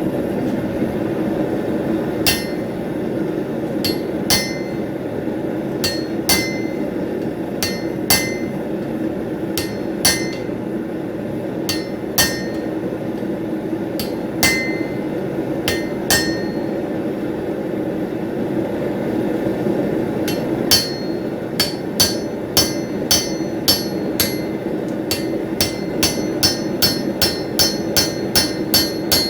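Blacksmith's hammer striking hot steel on an anvil, each blow a sharp ringing clink. At first one or two blows come every couple of seconds; from about two-thirds through they come in a quicker run of two to three a second. A steady rushing noise runs underneath.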